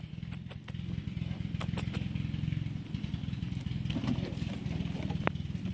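An engine idling steadily with a low, even hum, with a few light sharp clicks over it.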